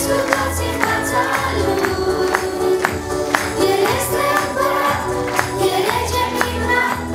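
Children's choir singing a Romanian Christmas song through microphones and speakers, over instrumental accompaniment with a steady beat.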